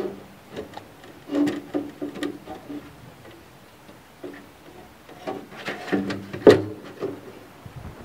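A large CPU daughterboard being lowered into its card guides and pushed into the motherboard slot of a computer chassis: scattered clicks, knocks and light scrapes of board on metal, with the sharpest knock about six and a half seconds in as it seats.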